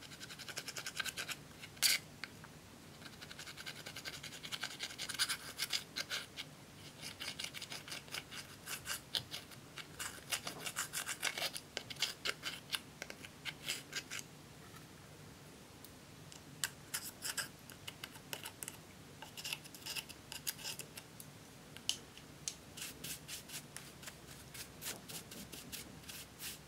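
Pointed metal tip of small scissors scraping pressed eyeshadow out of a plastic compact palette: quick scratchy strokes in clusters with short pauses, and one sharp click about two seconds in.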